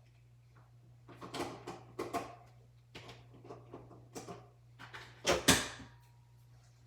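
Plastic clicks and knocks from a single-serve coffee maker's pod holder being worked by hand, a handful of separate clunks with the loudest, a quick double knock, near the end.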